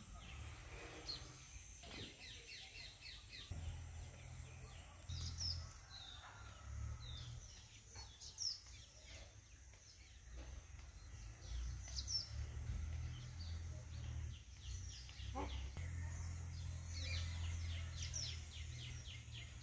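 Small birds chirping and calling on and off, with quick chattering runs about two seconds in and again near the end, over a low steady rumble and a few faint clicks.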